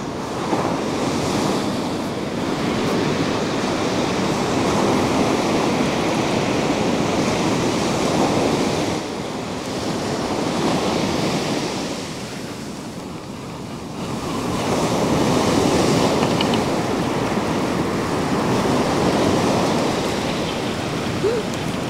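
Ocean surf breaking on a sandy beach, a steady wash of noise that swells and eases over several seconds as each set of waves rolls in and runs up the sand.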